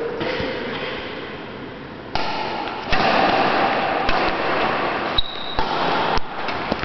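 A badminton rally: rackets strike the shuttlecock several times with sharp, short clicks that echo in the sports hall.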